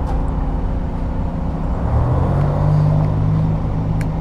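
An engine running steadily with a low hum, its pitch stepping up about two seconds in and then holding.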